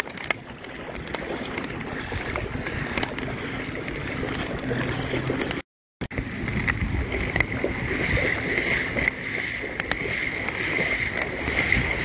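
Rain falling on a flooded street with the wash of moving floodwater, and a steady high whine behind it. The sound cuts out completely for a moment about halfway through.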